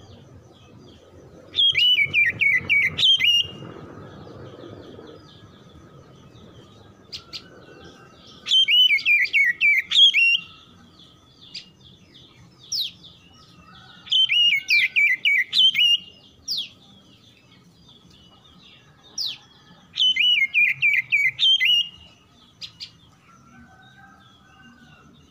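Oriental magpie-robin singing: a loud phrase of quick, falling whistled notes, repeated four times about six seconds apart, with single short whistles between the phrases.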